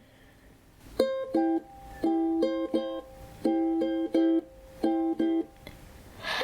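Ukulele instrumental intro: plucked notes played in short phrases of two or three notes with brief pauses between them, starting about a second in.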